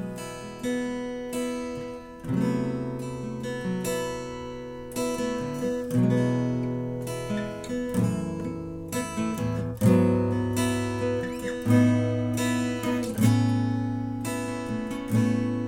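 Solo acoustic steel-string guitar, a J. White AH GC100 PHX with a solid ash top, mahogany body and D'Addario steel strings, played unplugged: chords strummed and picked, each one struck sharply and left to ring, changing every second or two.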